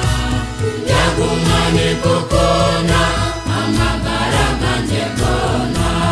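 Gospel choir singing over an instrumental backing with a steady beat; the voices come in strongly about a second in.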